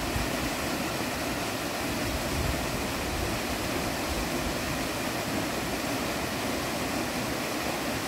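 Steady rushing and splashing of a small waterfall falling into a shallow pool.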